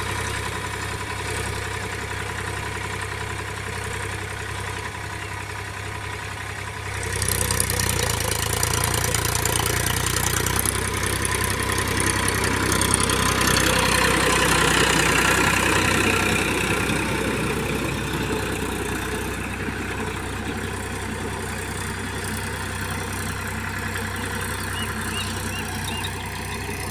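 Powertrac 439 Plus tractor's three-cylinder diesel engine running steadily under load as it drives a rotavator through the soil. It gets louder about seven seconds in as the tractor comes close, then slowly fades.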